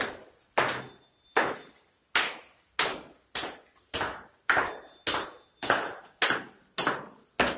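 Hard-soled footsteps going down stone stairs, about two sharp steps a second, each ringing briefly in the bare stairwell.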